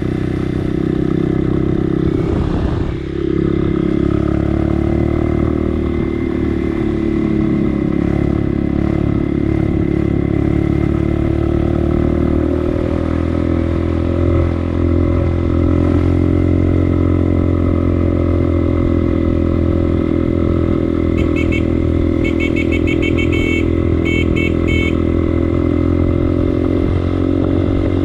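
Motorcycle engine running steadily under way, with road and wind noise. It dips briefly about three seconds in, and a run of short high-pitched pips sounds near the end.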